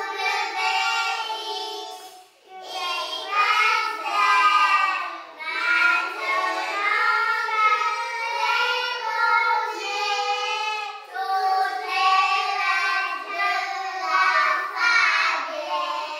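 A small group of young children singing a French nursery song together in phrases, with brief pauses for breath between them.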